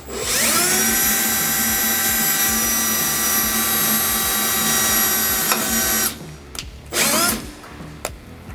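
Cordless Milwaukee drill spinning up with a rising whine and running steadily while drilling a small pilot hole through the fridge slide into the pickup's metal bed, stopping about six seconds in. A short second burst of the drill motor follows about a second later.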